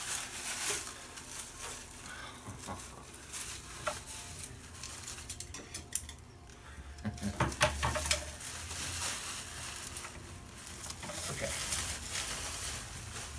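Plastic packaging wrap and bags rustling and crinkling as they are handled and pulled off a delta 3D printer's frame. A cluster of clicks and knocks about seven to eight seconds in comes from handling.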